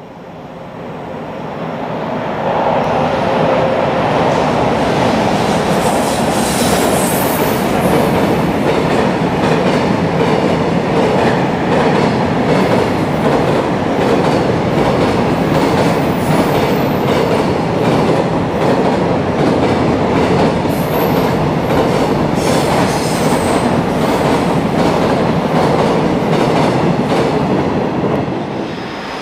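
Freight train passing close by on elevated track: a steady rumble with a rapid clickety-clack of wheels over rail joints and a few brief high wheel squeals. It swells in over the first couple of seconds and eases off near the end as the last wagons go by.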